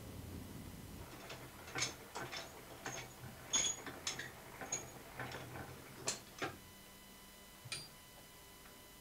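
Lock and latch of a heavy steel vault door being worked by hand: an irregular run of sharp metal clicks and clanks, some ringing briefly, that stops a little before the end.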